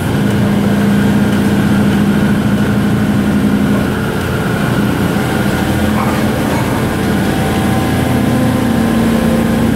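Excavator's diesel engine and hydraulic system running steadily as the boom moves a hydraulic wedge rock splitter into position, a loud steady hum with a fainter whine above it. The engine note eases slightly about four seconds in and picks up again near the end.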